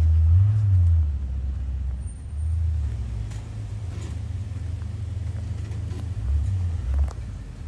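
Toyota 4Runner's 4.0-litre V6 running at low revs while crawling a rough trail, a low rumble that rises and falls, loudest near the start and again near the end.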